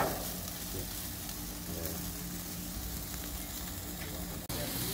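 Beef burger patties and chicken wings sizzling on a gas grill, a steady crackling hiss with a low hum underneath. The sound breaks off briefly about four and a half seconds in.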